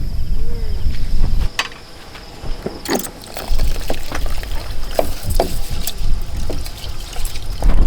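Wind buffeting the microphone: a heavy low rumble that drops away about a second and a half in and comes back near the end, with scattered clicks and knocks in between.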